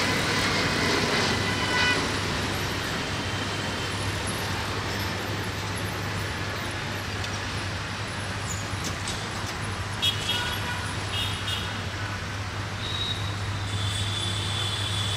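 Steady traffic and station background noise with a low, even hum, and a few short high-pitched toots near the start and again in the second half.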